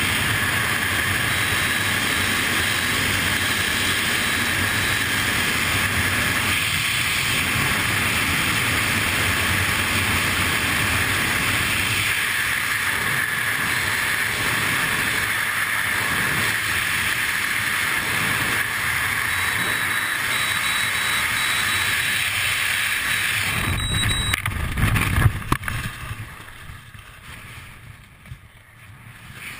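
Airflow rushing over a wingsuit flyer's camera microphone in freefall: a loud, steady rush of wind. Near the end it breaks into a brief loud buffeting, then drops to a much quieter rush.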